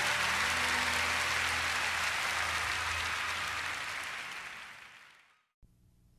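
Live audience applause after a song, a dense even clapping that fades out about five seconds in, with the band's last low notes dying away beneath it. A brief cut to silence follows, then a faint low hum.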